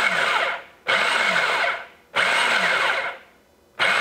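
Food processor pulsed four times, each pulse a whir of under a second with a short gap between, the blade chopping a flour, butter, water and vodka mixture into pie dough.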